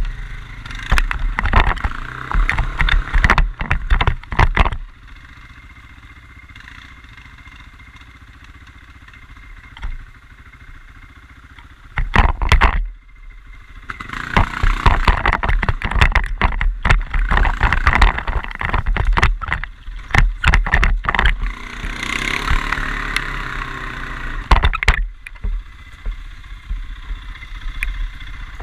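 Quad bike (ATV) engine revving hard in uneven bursts, dropping to a quieter steady run for several seconds in the middle, then pulling hard again.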